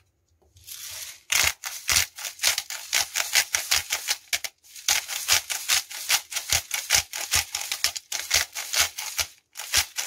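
Hand-twisted salt grinder milling salt crystals: a fast run of crunching clicks, several a second, with a couple of brief pauses between bouts of twisting.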